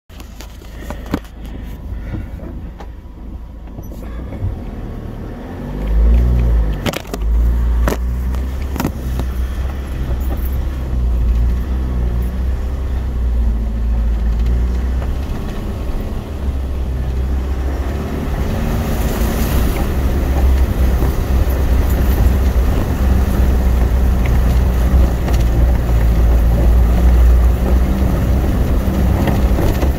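A 4x4's engine runs under load with a low rumble that grows louder, revving up about six seconds in. A few sharp knocks come in the first ten seconds. In the second half, water rushes and splashes around the vehicle as it wades through a flooded ford.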